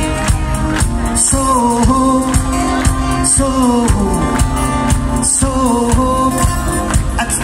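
A live band playing a song, with a steady drumbeat under a melodic lead line whose phrases fall away at their ends.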